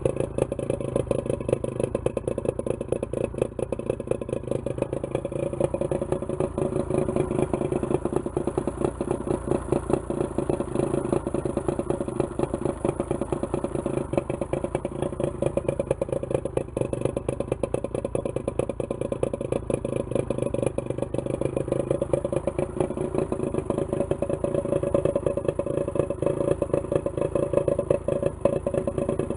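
1973 Johnson 50 hp two-stroke outboard motor running steadily on a garden-hose water supply, its speed holding even throughout.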